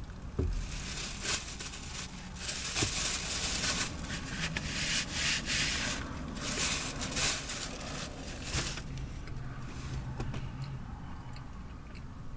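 Close-up eating noises inside a car: chewing with crackly, rustling bursts over the first nine seconds or so, quieter near the end.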